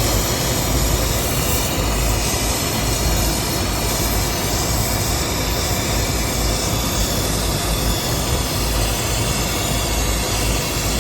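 Brazing torch burning with a steady rushing hiss as the new compressor's refrigerant lines are sweated in.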